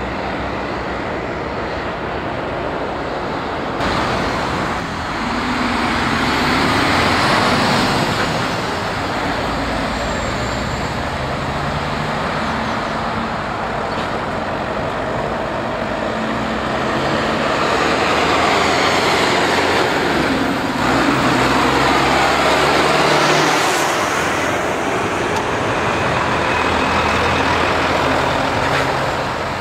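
Heavy diesel trucks and cars driving past, engines pulling with tyre and road noise. The noise swells twice as trucks pass close, the second time longer.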